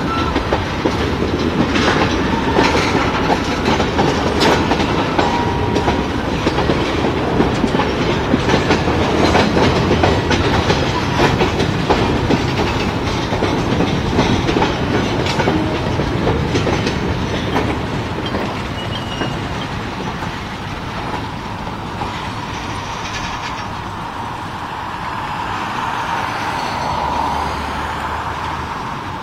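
Freight train cars rolling past, their steel wheels clicking steadily over the rail joints with a heavy rumble. The clicking thins out and the sound eases a little about two-thirds of the way through.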